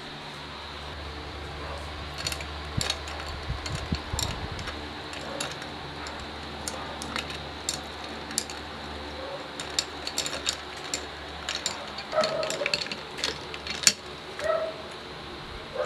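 Scattered light clicks and taps of a drinking glass and a ceramic plate being handled on a wooden desk, over a steady low hum.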